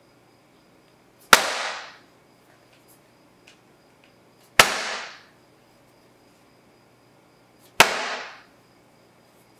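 Metal baking sheet of piped macaron shells lifted and dropped flat onto the table three times, about three seconds apart, each a sharp bang with a short metallic ring that dies away within about half a second. The drops knock air bubbles out of the piped batter before the shells rest.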